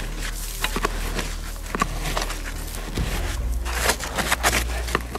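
Gloved hands and a small hand brush scraping and sweeping loose sandy soil: a run of irregular scratches, rustles and small clicks.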